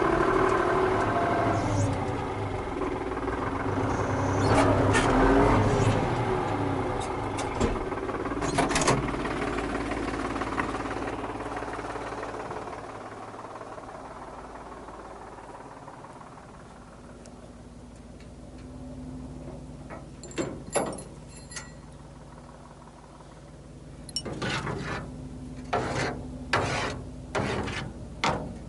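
Farm tractor engine running, loud at first and then fading away gradually. Later come a handful of sharp clicks and knocks, a pair and then a quick cluster near the end.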